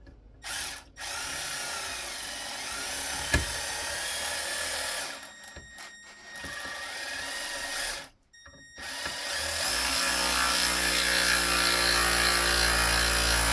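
Milwaukee M12 cordless ratchet's motor running in several stop-start bursts as it drives a bolt into wood. The longest and loudest run begins about nine seconds in.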